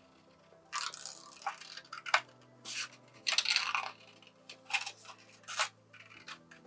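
Small, sharp sewing-style scissors snipping through paper: a run of about eight to ten quick, crisp cuts, one after another.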